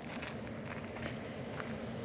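Footsteps crunching on rough ground, about four steps spaced roughly half a second apart, over a steady low background noise.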